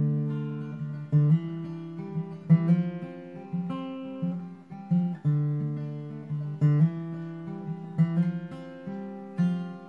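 Acoustic guitar playing a slow ballad intro: chords struck about once a second, each left to ring and fade before the next.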